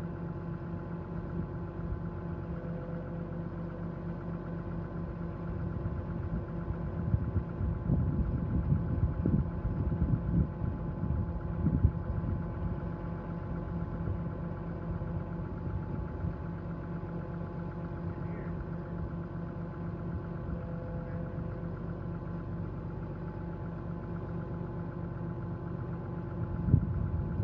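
A 2009 Ford F-750XL bucket truck's engine running steadily while the aerial boom is being moved. A louder low rumble comes and goes in the middle stretch.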